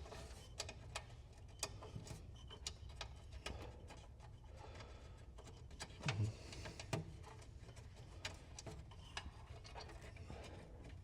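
Wiring connectors and cable being fed back through an opening in the cart: faint, irregular light clicks and rubbing, with two soft knocks about six and seven seconds in.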